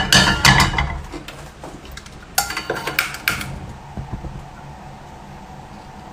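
Metal frying pan and kitchenware clattering and knocking as they are handled and set on the stove: a cluster of sharp clanks in the first second and another about two and a half to three and a half seconds in, then quieter.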